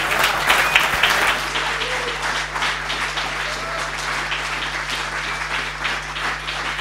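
Audience applauding: a dense, steady clatter of many hands clapping together, starting suddenly just as the speaker pauses and keeping up throughout.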